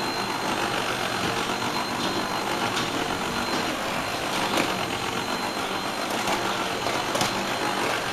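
Vacuum cleaner running steadily: an even rushing noise with a thin high whine over it, and a few faint knocks.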